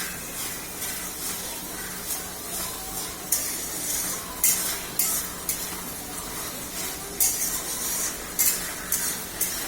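Onion paste sizzling in hot oil in a kadai, with a spatula stirring and scraping against the pan in a series of short strokes from about three seconds in.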